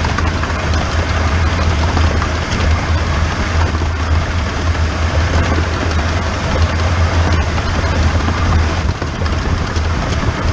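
15-inch-gauge steam locomotive 'The Bug' running, heard from a camera mounted on its injector pipe: a loud, steady rumble with a noisy hiss of running over it, no clear beat.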